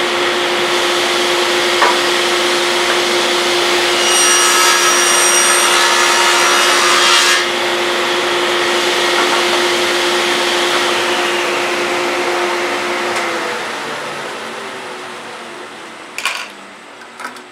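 Table saw running with a steady whine over the dust collector's rush; from about four to seven seconds in, the blade cuts through a side of a glued-up maple box to free the lid. The saw is then switched off, and its whine falls in pitch and fades as the blade coasts down, with a couple of knocks near the end.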